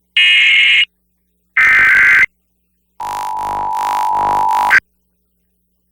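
Emergency Alert System broadcast signal: two short bursts of warbling digital SAME header tones, then the two-tone attention signal sounding steadily for about two seconds and cutting off suddenly, the opening of a required monthly test.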